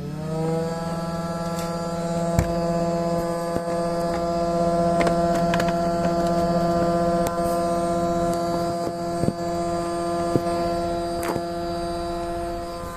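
A vehicle headlight making an abnormal electrical hum, the fault being shown. A buzzing tone rises in pitch over the first half second as it comes on, then holds steady, with a few scattered clicks.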